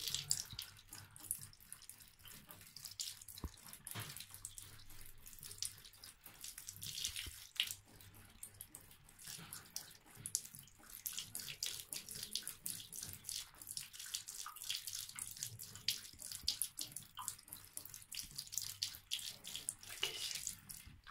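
A thin trickle of water from a bath tap spattering into the tub, with quick, irregular splashes and ticks as a cat's tongue laps at the stream.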